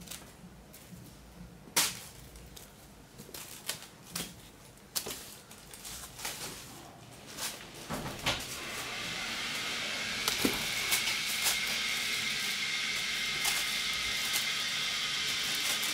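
Scattered taps, scuffles and rustles of Burmese kittens playing with a feather toy and a plastic bag on a tiled floor. About halfway through, a steady hiss with a faint high tone comes in and keeps on, louder than the taps.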